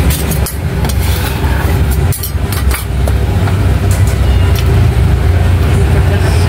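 A steady low motor rumble, with a few sharp clicks in the first three seconds.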